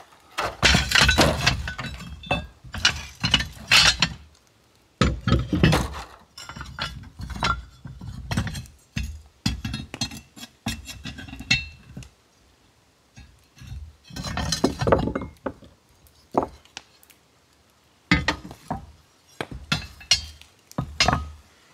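Cast-iron grates and other rusty parts of an old wood stove clanking, knocking and scraping against each other and a wooden timber as they are handled and set down, in bursts of clatter with short pauses between.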